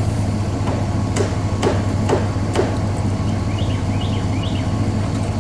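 Four sharp knocks, about half a second apart, over the steady hum of an idling engine.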